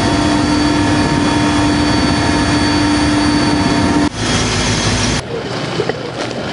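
Aircraft noise recorded in flight: a loud, steady engine hum with several steady whining tones. It changes briefly at about four seconds and cuts off a little after five seconds, giving way to quieter outdoor background noise.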